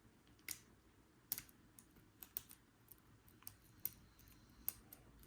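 Faint, irregular small clicks of a lock pick working the pins of a Paclock 90A Pro padlock under tension, the lock sitting in a deep false set.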